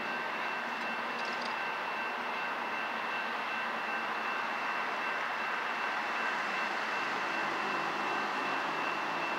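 Grade-crossing warning bell ringing steadily as the crossing gates come down, signalling an approaching train. Under it is the steady rumble of the approaching CSX freight train's diesel locomotives, an ES40DC and an ES44AC.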